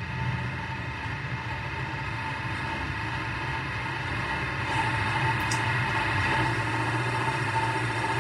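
Steady mechanical hum, a low drone with a higher whine above it, getting a little louder about five seconds in.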